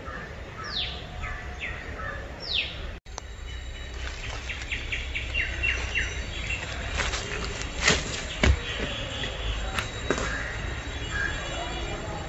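Outdoor ambience with birds calling: two sharp downward-sweeping calls in the first few seconds, then a quick run of short chirps, over a steady low rumble with a few scattered clicks. The sound cuts out for an instant about three seconds in.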